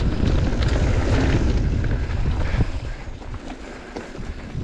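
Wind buffeting the microphone while riding a mountain bike on a trail, with a steady low rumble of tyres and scattered knocks from the bike over rough ground. It gets quieter about three seconds in as the bike slows.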